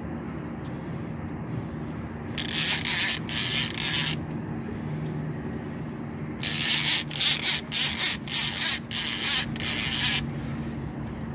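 Fishing reel on a heavy sturgeon rod buzzing in short, rasping bursts while a hooked fish is fought: a few about two and a half seconds in, then a longer run of pulses from about six to ten seconds in. Underneath is the steady low hum of the boat's idling engine.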